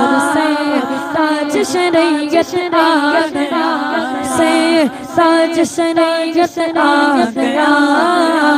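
Boys singing an unaccompanied devotional manqabat into microphones. The melody glides up and down in ornamented runs over a steady held low note.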